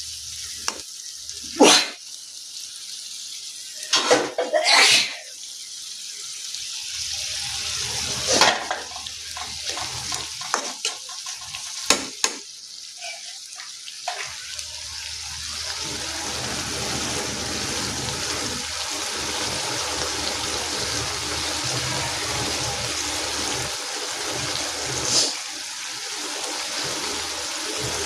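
Prawn bhuna frying and sizzling in a pan, with a spoon knocking and scraping against the pan several times in the first half. After that the sizzle runs steady and grows a little louder.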